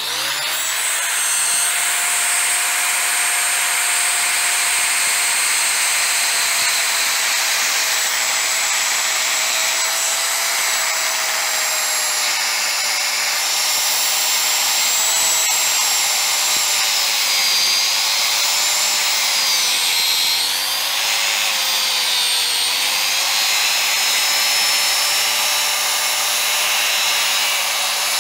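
Corded circular saw cutting along the layout line of a red cedar stair stringer, running steadily under load. Its pitch sags and wavers about two-thirds of the way through as the blade bogs in the cut.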